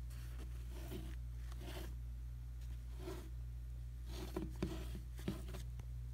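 A series of short rustles and scrapes from the plush toy and camera being handled, over a steady low hum.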